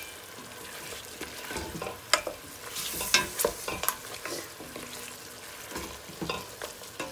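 Mutton pieces sizzling as they fry in a thick spice masala in a stainless steel pot, while a wooden spatula stirs and scrapes them against the pot with irregular scrapes and light knocks. This is the bhuna stage, frying the masala until its oil separates.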